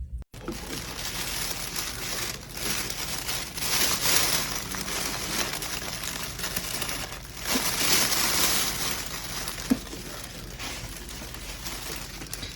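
Crinkling, rustling noise that swells louder several times, with a few small clicks.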